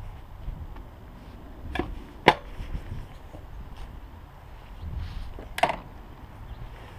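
A few sharp clicks and knocks from the electric bike being handled, the loudest a little over two seconds in and the last with a short ring, over a low rumble.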